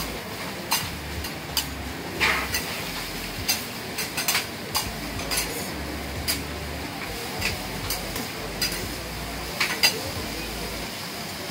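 Metal okonomiyaki spatulas clinking and scraping on a steel teppan griddle as the pancakes are lifted and flipped, in irregular sharp strikes with the loudest near the end, over a steady sizzle from the hot plate.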